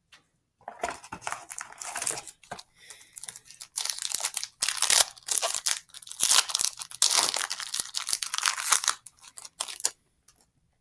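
Foil Yu-Gi-Oh! booster pack wrapper being torn open and crinkled by hand, a dense crackling with sharp crinkles, loudest in the middle seconds.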